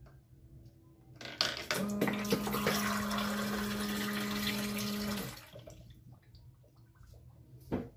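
Coin-operated water vending machine running on a 12-volt battery: a few clicks as the coin goes in, then its pump hums steadily while water pours from the faucet into a glass for about three and a half seconds, cutting off abruptly. A single click comes near the end.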